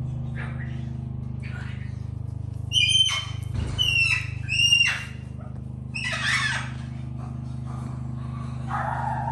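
Animal squawks: three loud, high calls that slide in pitch about three to five seconds in, then a harsher screech around six seconds, over a steady low hum.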